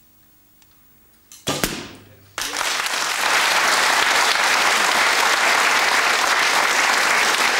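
An arrow bursts a white balloon pinned to an archery target with a single sharp pop about a second and a half in. About a second later a studio audience starts applauding loudly and keeps it up.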